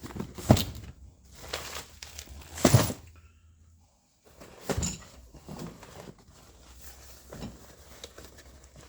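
Boxed brake parts and their packaging being handled: a few sharp knocks, with light rustling of packing material between them.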